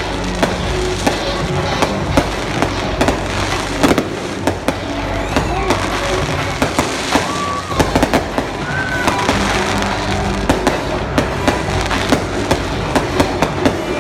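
Fireworks display going off: a steady run of sharp bangs and crackles that comes quicker toward the end, with music playing underneath.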